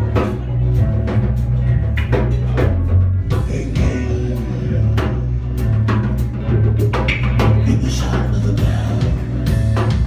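Instrumental passage of a rock-style band song: a drum kit keeps a steady beat over a bass line and guitar, with no singing.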